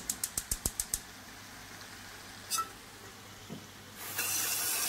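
Gas hob's spark igniter clicking rapidly, about six clicks a second, for the first second, then a single click later on. From about four seconds in, tap water runs steadily into an enamel kettle.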